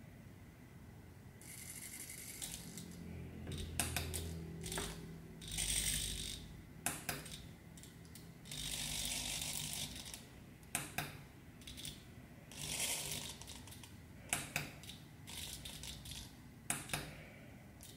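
Micro servo motors of a small hobby robotic arm whirring in short spells of about a second as the arm swings and grips, with sharp clicks between the moves.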